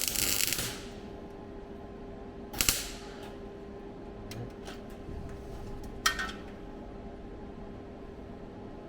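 MIG welder putting tack welds on a thin steel repair panel: a crackling burst about a second long at the start, then two short sharp tacks about three and six seconds in, with a few faint clicks between and a steady low hum underneath.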